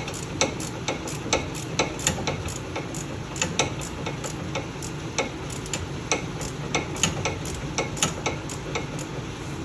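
Hand ratchet clicking as a shock absorber mounting bolt is tightened, irregular runs of sharp clicks about two to three a second as the handle is swung back and forth.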